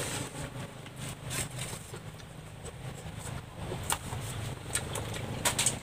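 A small engine running steadily in the background as a low, even hum, with a few sharp clicks over it.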